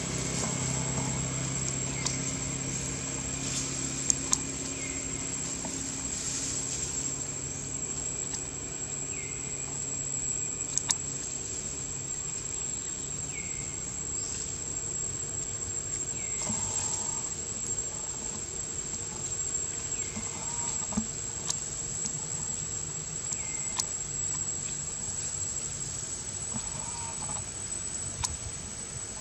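Insects, likely crickets, trilling with a steady high-pitched tone. A short falling chirp repeats every three to four seconds, with a few faint clicks from the grass.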